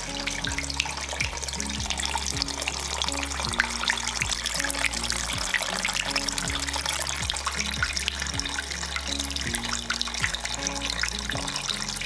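Water trickling and splashing from the spout of a homemade cement tabletop fountain onto the pebbles in its basin, with background music.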